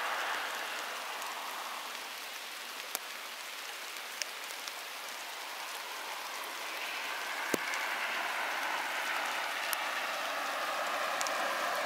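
Steady rain falling, an even hiss, with a handful of sharp ticks from single drops striking close by. It grows a little louder in the second half.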